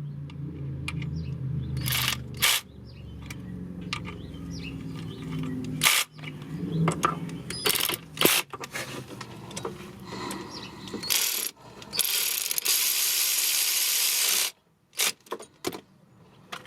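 Hand ratchet clicking and metal tools clinking as the valve cover bolts on a Mazdaspeed 6 cylinder head are tightened. A low hum runs through the first couple of seconds, and a steady hiss lasts about three seconds in the last third.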